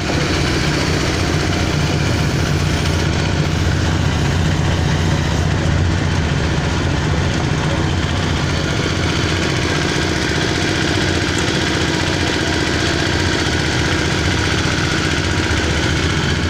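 Small stationary engine driving a livestock feed mixer, running steadily as the mixer's ribbon paddles turn through a load of feed.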